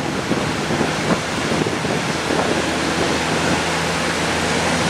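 Wind buffeting the microphone over a steady hiss of wet road, with a low, steady vehicle engine drone underneath.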